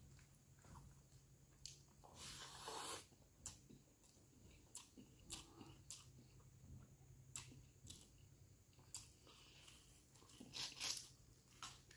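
Close-up eating sounds of a rice meal eaten by hand: scattered wet clicks and smacks of hand-mixing and chewing, with louder crunchy bites about two seconds in and near the end.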